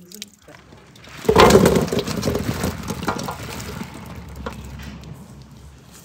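Strawberries tipped into a large metal basin: a sudden rush of many small knocks and rustles about a second in, trailing away over a few seconds.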